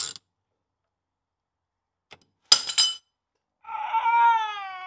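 A steel ratchet dropped off the swivel housing clinks sharply and rings briefly about two and a half seconds in. Just over a second later comes a drawn-out tone that slides slowly downward, a comedic 'fail' sound effect.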